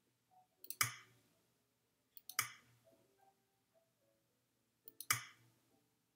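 Three sharp clicks, each a light tick followed at once by a louder snap, as on-screen buttons are clicked. The second click comes about a second and a half after the first, and the third about three seconds later. Faint soft tones sound between them.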